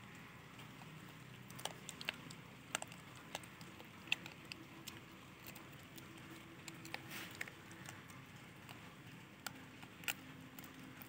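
Faint, irregular clicks and ticks of roasted chana being picked one by one from a palm by a gray langur.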